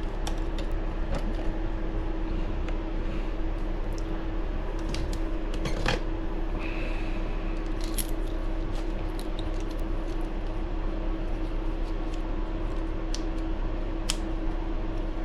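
Scattered light clicks and taps of small RC car parts and screws being handled while the shocks are mounted, over a steady electrical hum.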